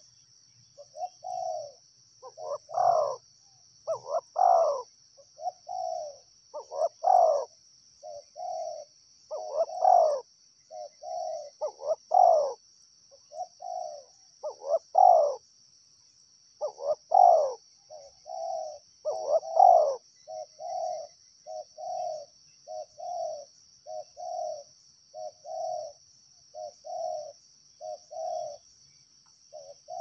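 Spotted dove cooing in a long run of repeated phrases. The notes are louder and fuller for most of the first two-thirds, then shorter, softer and evenly spaced, all over a steady high hiss.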